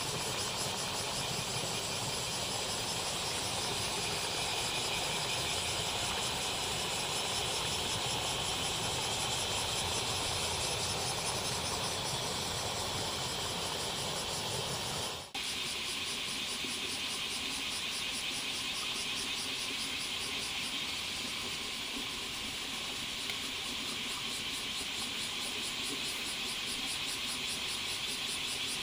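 A dense chorus of bear cicadas (kumazemi) shrilling steadily in a high, fast-pulsing drone. About halfway through, the sound cuts out for an instant and comes straight back, with less low rushing noise underneath.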